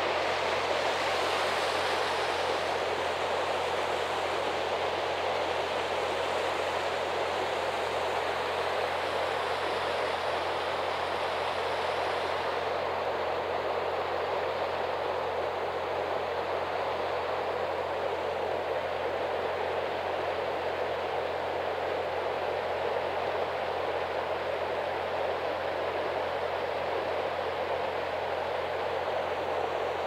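River water rushing over a small stone weir beneath a footbridge: a steady, unbroken rush of falling and flowing water.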